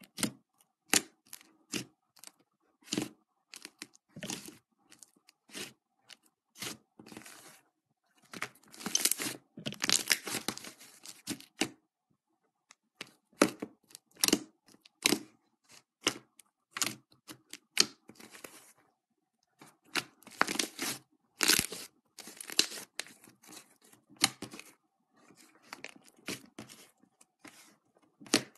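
Fluffy slime being squeezed, poked and stretched by hand. It gives short, irregular sticky crackles and clicks, which thicken into dense crackling twice, about a third and about three-quarters of the way in.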